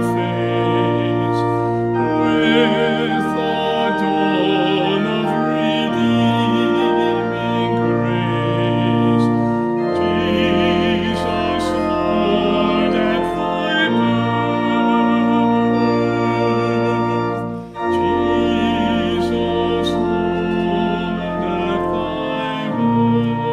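Organ playing a hymn in slow, sustained chords over a low pedal bass, the harmony changing every few seconds, with a brief break between phrases about two-thirds of the way through.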